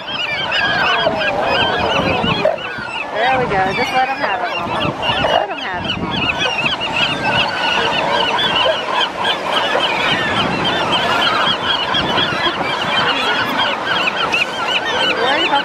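A large flock of gulls calling all at once: a constant din of many overlapping short, high calls. The birds are crowding and squabbling over an elephant seal's fresh afterbirth in a feeding frenzy.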